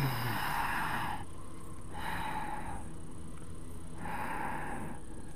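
A person breathing while holding a yoga pose: three long breaths about two seconds apart, over a faint steady low hum.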